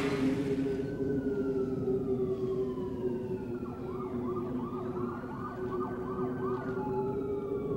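Sirens wailing, their pitch sliding slowly down and then back up, over a steady low drone, a city-at-night sound bed. Louder music fades out at the very start.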